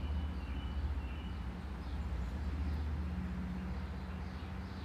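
Outdoor ambience: a steady low hum, like an engine or motor running at a distance, with faint short bird chirps repeating above it.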